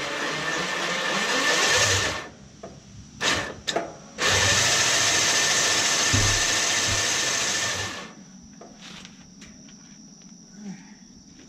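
Salvaged winch motor driving the electric-converted MTD Yard Machine lawn tractor through its 24 V speed controller, running hard in forward gear. It runs in a steady spell of about two seconds, gives two short blips, then runs for about four seconds more and cuts off sharply.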